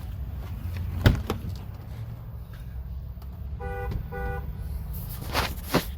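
Two short electronic beeps from the Jeep Wrangler's warning chime, a little over halfway through, between sharp knocks about a second in and near the end, over a steady low hum.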